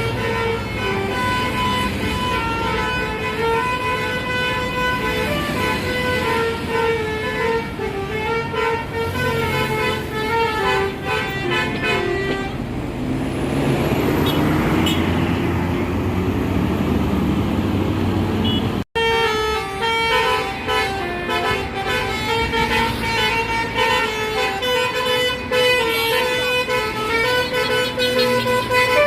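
A bus's basuri musical horn playing a tune of stepped, held notes. About two-thirds of the way through the first half, the tune gives way to a few seconds of a bus engine revving up. After a sudden cut, the horn tune plays again.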